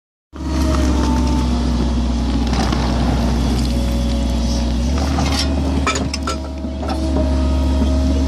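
Excavator engine running steadily with a low hum, its pitch stepping up slightly about five seconds in. A few sharp clinks and knocks come between five and seven seconds.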